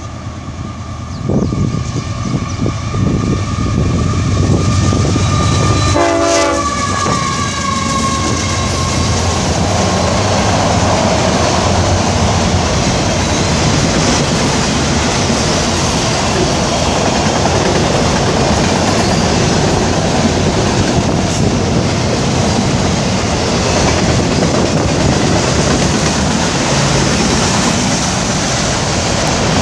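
A freight locomotive's horn sounds one long blast as the train approaches. Its pitch drops as the locomotive passes about six seconds in. It is followed by the steady, loud noise of autorack cars rolling past.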